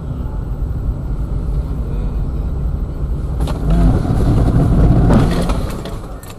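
Car driving, with a loud engine and road rumble that swells louder about halfway through, with a few sharp knocks, then eases off near the end.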